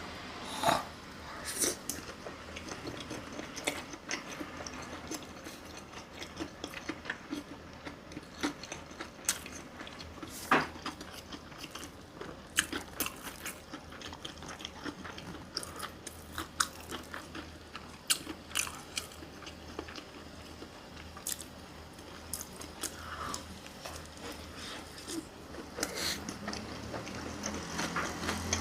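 A person eating close to the microphone: chewing and biting, with many short, sharp crunches and clicks scattered through.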